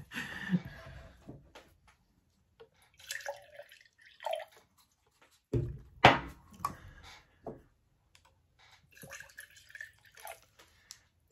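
Handling of a plastic water bottle and a drinking glass on a table, with a sharp knock about six seconds in, then water poured from the plastic bottle into the glass near the end.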